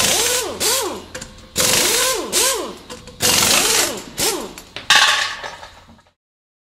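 Intro sound effects: four loud, bright noisy hits about a second and a half apart, each carrying tones that sweep up and down in pitch and fading away. The sound cuts off shortly before the end.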